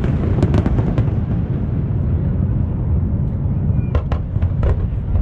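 Fireworks display: a continuous rumble of aerial shells booming in quick succession, with sharp crackling bursts about half a second in and again around four seconds in.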